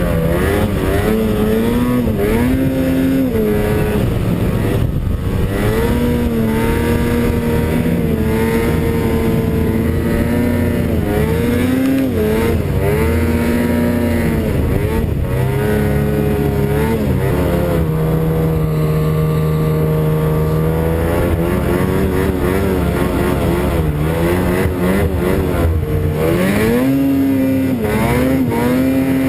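Snowmobile engine running under load in deep snow, its pitch rising and falling every few seconds as the throttle is worked, with a steadier stretch of held revs in the middle.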